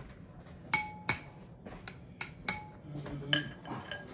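Metal spoon clinking against ceramic plates and bowls, about six sharp clinks, each with a short ring.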